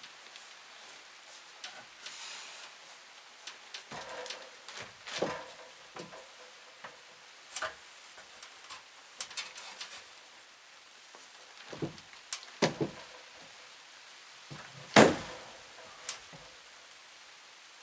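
Scattered wooden knocks and clunks as a framed lumber eave section is lifted and pushed into place on the roof framing, with the loudest knock about fifteen seconds in.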